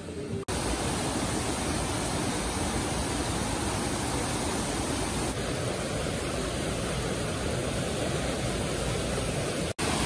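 Waterfall and its rocky river rushing: a loud, steady, even hiss of falling water that starts suddenly about half a second in.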